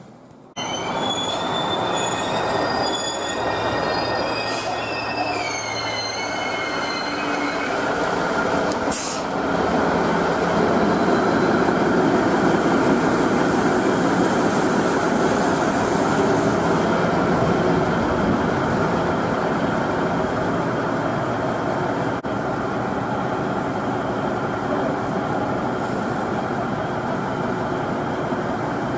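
Diesel railcar of the HIGH RAIL tourist train arriving at the platform: high wheel squeals gliding up and down for the first several seconds, a short sharp sound about nine seconds in, then the loud steady noise of the train running as it stands.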